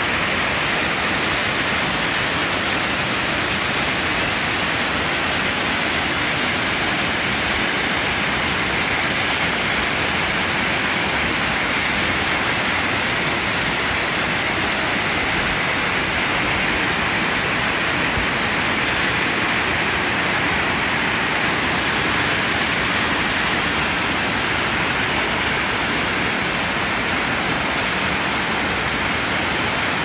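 Small jungle waterfall pouring onto rocks: a steady, unbroken rush of falling water.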